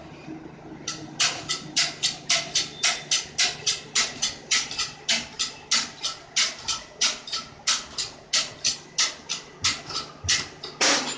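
Rhythmic rasping or scraping strokes, about three a second, keeping an even pace. The longest and loudest stroke comes near the end.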